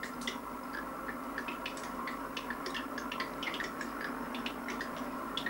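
Light, irregular ticking and clicking, several a second, over a steady machine hum.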